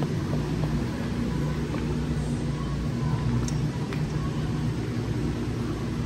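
Steady low rumble and hum of a grocery store, with a few faint clicks.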